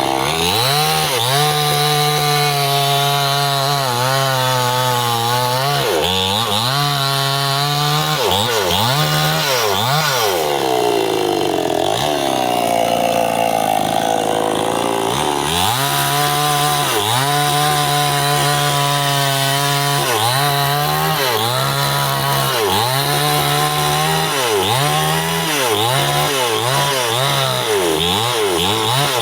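Stihl two-stroke chainsaw cutting through bendo tree wood under full throttle. Its engine pitch sags again and again as the chain bites and climbs back as the load eases, with a longer slowdown about halfway through.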